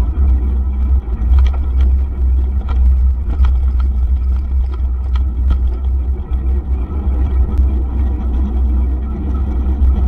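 Heavy wind rumble on the microphone of a camera carried on a moving mountain bike, mixed with tyre noise on a rough dirt and cracked-concrete path. Scattered light clicks and rattles from bumps come during the first half.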